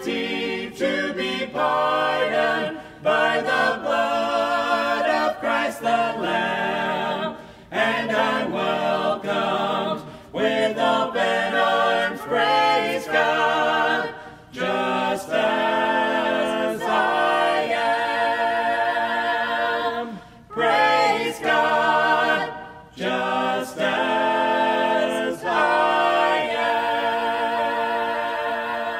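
A choir singing a hymn a cappella in four-part harmony, in phrases with short breaths between them. It closes on a long held final chord that fades out at the end.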